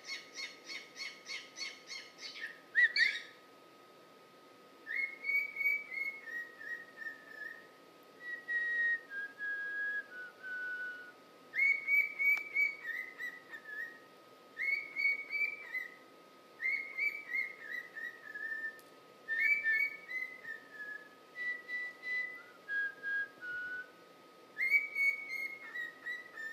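Cockatiel whistling: a quick run of about a dozen chirps, then a string of short whistled phrases, each a few arching notes that step down in pitch, repeated with short pauses between.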